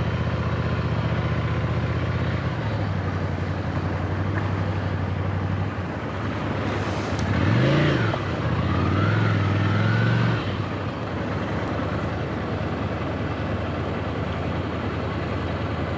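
Ducati Scrambler motorcycle's L-twin engine running at low revs on a river crossing, revved up and back down twice about halfway through with a rush of noise, then settling back to a steady low note.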